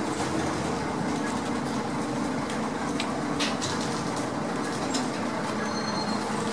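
Interior noise of a Heuliez GX417 articulated bus: a steady drone of engine and running noise, with scattered rattles and clicks from the body fittings, two sharper ones about three seconds in.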